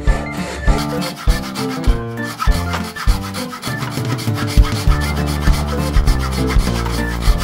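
Wooden frame saw cutting through a green branch, its blade rasping back and forth in repeated strokes, under background music with a steady beat.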